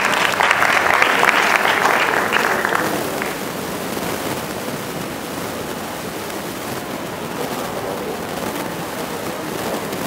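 Audience applauding, the clapping dying away about three seconds in, then a steady background hiss of the hall.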